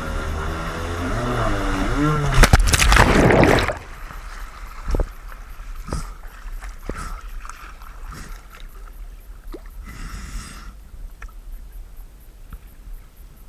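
A powerboat engine passing close by, its pitch bending and falling, followed about two and a half seconds in by a loud rush of splashing noise lasting about a second. Then quieter water, with scattered knocks and splashes from the small boat.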